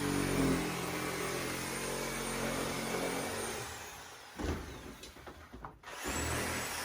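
A motor hums steadily, fading away over the first three seconds or so, then a single knock about four and a half seconds in.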